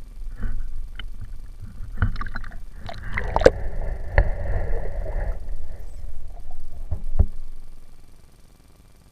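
Knocks and sloshing water close to the microphone over a low rumble, with a louder burst of splashing in the middle, then it goes quiet near the end.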